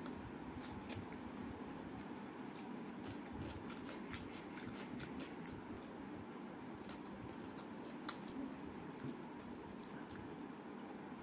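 Quiet eating-by-hand sounds: wet squishing of food and chewing, with scattered small mouth clicks and smacks, over a steady low hum. Two sharper clicks come near the end.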